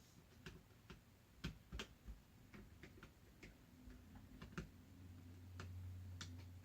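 Faint, irregular small clicks and taps of hand work on an Acer C720 Chromebook's internals: a small screwdriver and plastic and metal parts being handled as the laptop is taken apart. A faint low hum comes up about five seconds in.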